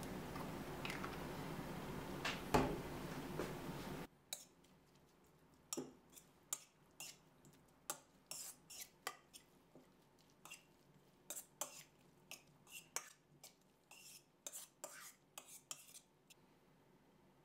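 Metal spoon clinking and scraping against a stainless steel mixing bowl as a salad is stirred: light, irregular clinks, one or two a second, at low volume. They follow a steady hiss with a single knock that cuts off about four seconds in.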